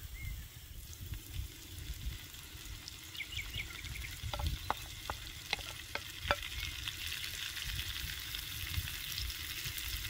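Onions and diced fried eggplant with green bell pepper sizzling in an oiled skillet, stirred with a wooden spatula. The sizzle builds after about a second, and several sharp knocks come in the middle as the spatula scrapes food from a bowl and strikes the pan.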